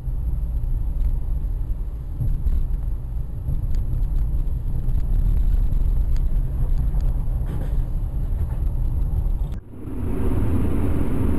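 Car driving, heard from inside the cabin through a dashcam: a steady low rumble of engine and road. About nine and a half seconds in, it cuts to another drive with a fuller, brighter road noise.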